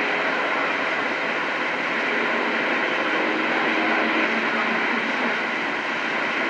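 CB radio receiver hissing steadily with band static between transmissions on the 11-metre band, with a few faint steady tones underneath.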